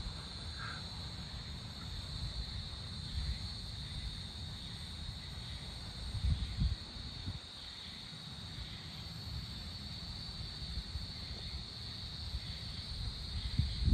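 A steady, high-pitched chorus of insects such as crickets, unbroken throughout, over a low rumble that swells louder about six and a half seconds in and again just before the end.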